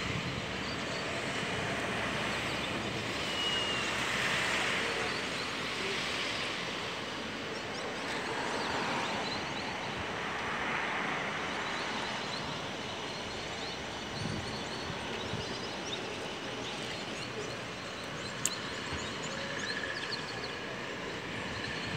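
Distant jet airliner's engines on the runway: a steady rushing noise that swells twice and eases off.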